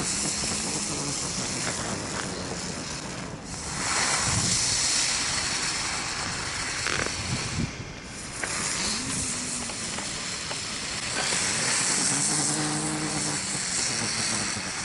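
Steady outdoor hiss with faint distant voices and a couple of faint pops, with no nearby firework bangs.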